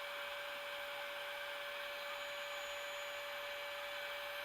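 Electric heat gun running steadily: an even rush of blown air with a constant motor whine, heating heat-shrink tubing over a soldered wire joint.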